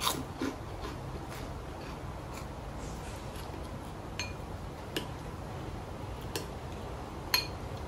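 Quiet eating sounds at a table: about half a dozen small, separate clicks and clinks of tableware over a steady low hiss, the sharpest clink near the end.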